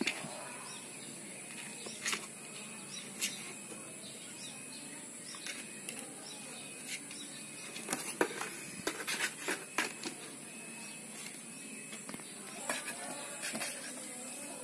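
Two kittens wrestling in a cardboard box: scattered scratches, scrabbling and light knocks of claws and paws on the cardboard, thickest about eight to ten seconds in, over a steady hiss.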